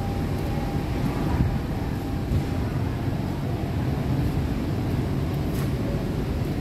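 Steady low rumbling background noise of a large factory hall, with no distinct events.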